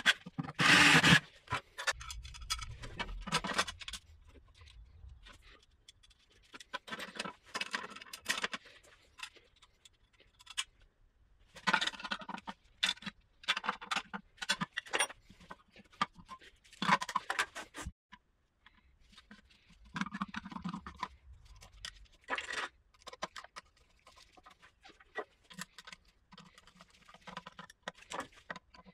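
Scattered clicks, knocks and scrapes of hand work on a milling machine's metal electrical panel while a mains socket is fitted to its front cover, in irregular short bursts with quiet gaps between.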